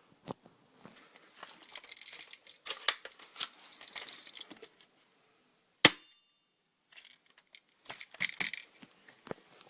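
An airsoft gun fires a single sharp crack about six seconds in. Before and after it come scattered clicks and rustling from the gun and the apple being handled.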